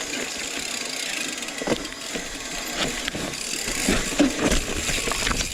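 Rocky Mountain Slayer mountain bike riding down a rocky trail over a drop: a steady rush of tyre and trail noise with the bike rattling, and sharp knocks as the wheels hit rocks and land, the biggest about a second and a half in and again near four seconds.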